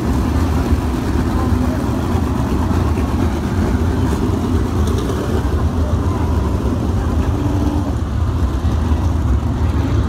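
A field of winged sprint cars' V8 engines racing on a dirt oval, a loud, steady, dense engine din.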